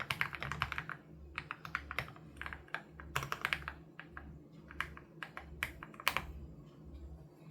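Typing on an Aula F87 Pro mechanical keyboard with HMX Sarcophagus switches: a quick run of keystrokes, then slower, scattered presses, with one louder stroke about six seconds in, after which the typing stops.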